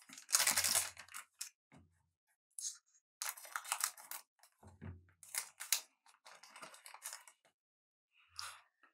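Collector card pack and cards being handled: several short bursts of rustling and crinkling, the loudest about half a second in, as the next pack is opened and its cards come out.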